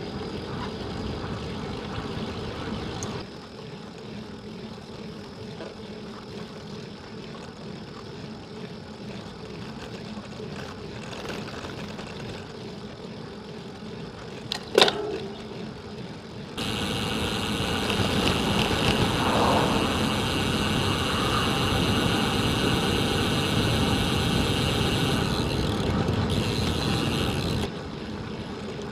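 Road bike riding, heard through the camera's microphone as a steady rush of wind and tyre noise, with one sharp click about fifteen seconds in. About halfway through the noise gets clearly louder and hissier, then drops back abruptly near the end.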